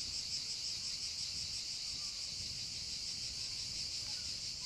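Steady chorus of cicadas buzzing with a slight pulsing, over a faint low rumble.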